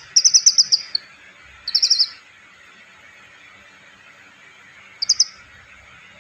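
Asian pied starling (jalak suren) giving quick runs of high chirps in three bursts: a longer one at the start, a shorter one about two seconds in, and a brief one about five seconds in.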